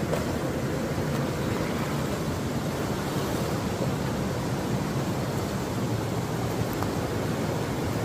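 Steady rushing of a river flowing close by, an even noise that does not change.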